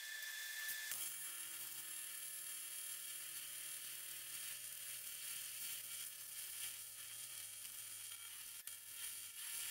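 AC TIG welding arc on cast aluminium: a steady buzzing hum with a sizzling hiss that strikes up about a second in and keeps going as the crack in the motor mount bracket is filled.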